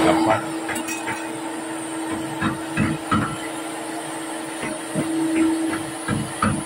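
Makita 2012NB thickness planer running with a steady motor hum and a faint high whine, not cutting. From about two seconds in come a series of short wooden knocks as boards are handled on the bench.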